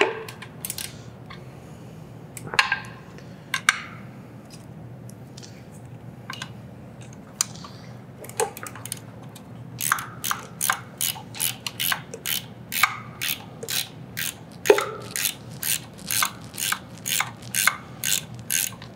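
Hand ratchet wrench clicking: a few scattered clicks at first, then a steady run of about two to three clicks a second from about halfway through.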